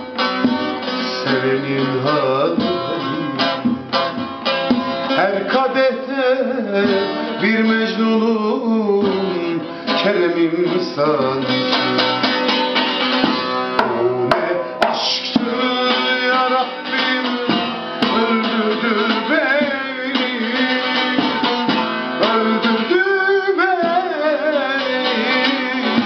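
Bağlama (long-necked Turkish saz) played fast with dense strumming and picked melody, with a man singing a Turkish song over it.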